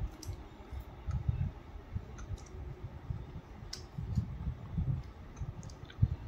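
A few faint, scattered clicks and soft low thumps of close handling, heard while a malpua is being eaten.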